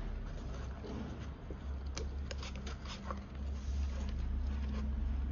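Hands working black fabric straps and wiring inside a foam airframe's fuselage bay: scattered light clicks and rustling over a steady low hum.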